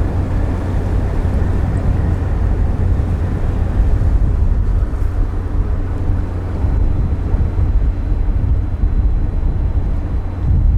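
Steady low drone of the cargo-passenger ship Hahajima Maru's engines heard on deck while under way, with wind noise on the microphone over it.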